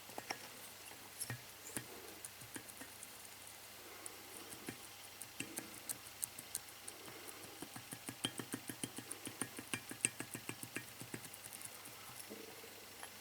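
A run of light clicks and taps, scattered at first and then quicker, about three or four a second, as small metal parts and tools are handled during cylinder head work.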